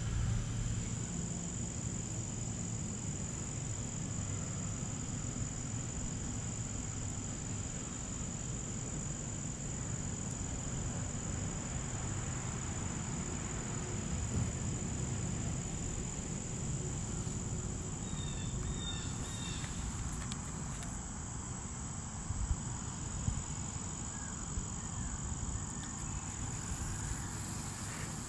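Steady, high-pitched insect chorus of crickets trilling without a break, over a low outdoor rumble.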